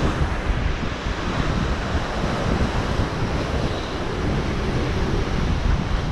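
Heavy ocean surf surging and breaking against a lava-rock shoreline, with wind buffeting the microphone as a gusty low rumble. The level stays fairly even throughout, with no single standout crash.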